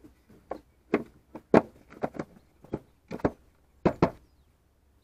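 Plastic air filter housing cover of an Opel Astra H 1.9 CDTI being fitted and pressed into place, giving a series of irregular plastic knocks and clunks, the loudest about one and a half and four seconds in.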